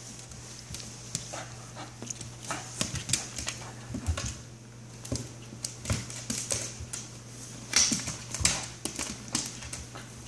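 A Scottish terrier rummaging in a fabric Christmas stocking on a hardwood floor: irregular rustling and quick clicks and taps, from its nose working the stocking and its claws on the wood. The clicks come thickest in the middle and towards the end, over a steady low hum.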